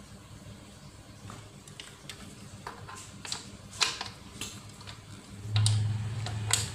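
Scattered clicks and knocks of welding-cable connectors being pushed and twisted into the front-panel sockets of a Lakoni Falcon 120e inverter welder. About five and a half seconds in, a steady low hum starts and becomes the loudest sound.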